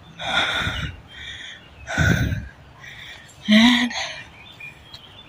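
A hiker's heavy breathing right at the phone's microphone: a few loud, rough puffs of breath, the two strongest about a second and a half apart.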